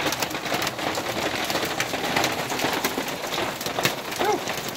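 Hail pelting the roof of a 2004 Lance 1025 truck camper, a dense, steady clatter of many small impacts heard from inside the camper.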